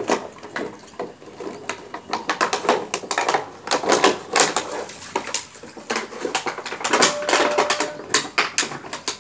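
A husky chewing and pawing at crumpled clear plastic, with rapid, irregular crackles and clicks in clusters: one run in the middle and another near the end.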